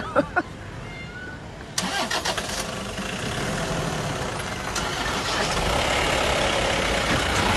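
Safari jeep engine starting about two seconds in, then running steadily and growing slightly louder. A few sharp clicks come right at the start.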